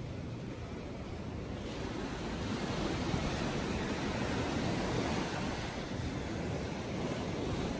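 Ocean surf washing onto the beach, a steady rush of waves, with wind on the microphone.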